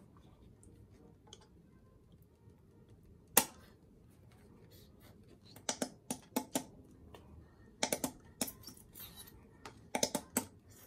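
Clicks and taps of a plastic acrylic paint squeeze tube being handled and squeezed over plastic cups: one sharp click about a third of the way in, then clusters of quick clicks in the second half.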